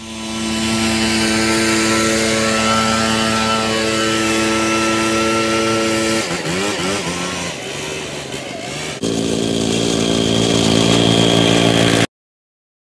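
Backpack leaf blower engine running at high throttle with a steady note; about six seconds in its pitch wavers up and down. About nine seconds in the sound cuts abruptly to a lower steady engine note with a thin high whine, a lawn core aerator's engine running, which stops suddenly near the end.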